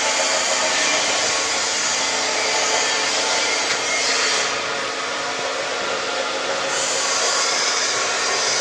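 Belt-driven electric gear motor of a tobacco blending bin's drive running: a steady whirring noise with a faint low hum and no separate knocks.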